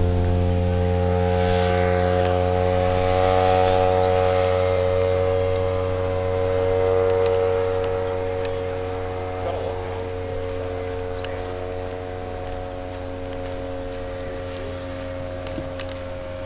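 Radio-controlled tow plane's engine drones steadily at one pitch as it climbs away towing a scale glider. It grows gradually fainter through the second half.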